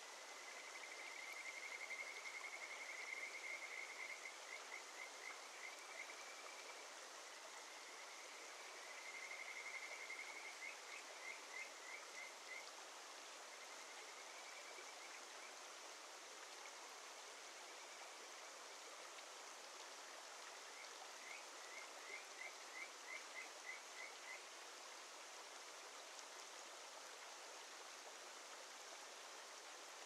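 Kajika frogs (Buergeria buergeri) singing over the steady rush of a mountain stream. They give high, clear whistled phrases, each a drawn-out trill that breaks into a run of short rising notes, in several bouts. The last is a quick string of short rising notes about two-thirds of the way in.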